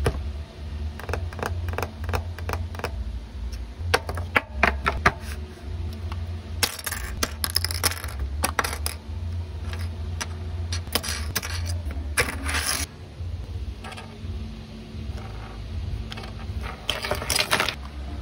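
Small electronics parts, Arduino boards, plastic breadboards and ultrasonic sensor modules, being set down and shuffled on a desk mat: many light clicks and clacks, with a few brief sliding, rustling scrapes in the middle and near the end. A steady low hum runs underneath.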